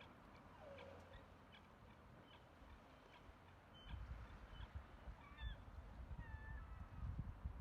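Faint bird calls, a few short cries gliding in pitch, over a quiet background. From about halfway in, wind rumbles on the microphone.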